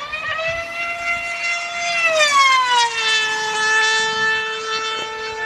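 High whine of a foam RC model plane's motor and propeller flying past. The pitch rises slightly, holds, then drops about two seconds in as the plane passes, and holds lower.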